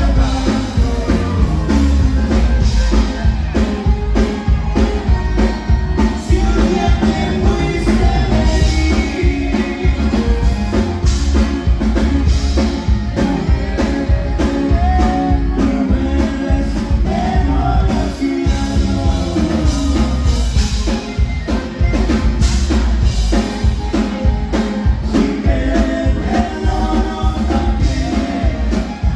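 Live Tejano conjunto band playing dance music with a singer: button accordion and bajo sexto over bass and a steady drum beat, loud and heavy in the bass, heard from the dance floor.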